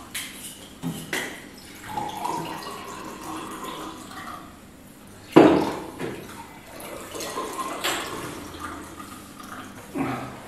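Wine poured from a bottle into stemmed wine glasses to mix Riesling spritzers, with glass clinking. There is a sharp knock about five and a half seconds in and a smaller one near the end.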